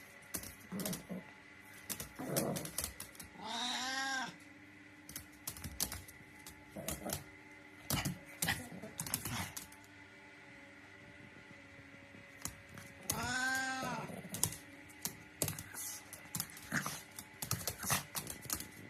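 A dog digging, its claws scratching in quick bursts of clicks. Twice, about 3.5 s in and again about 13 s in, a pet gives a drawn-out call that rises and falls in pitch.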